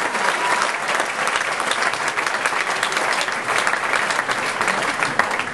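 Audience applauding steadily in a dense, continuous patter of many hands clapping.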